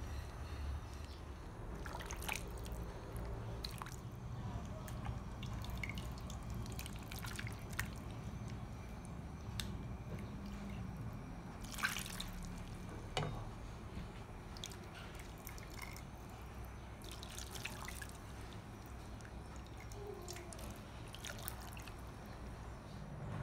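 Tom yam soup being ladled from a steel pot into a glass dish: liquid dripping and splashing off a wooden ladle, with scattered light clicks, over a low steady hum.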